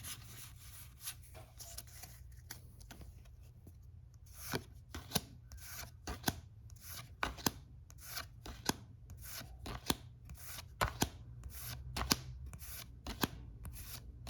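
Pokémon trading cards being slid one at a time off a freshly opened booster pack's stack, a short swish or snap of card on card about every half second. The first few seconds hold only soft rustling.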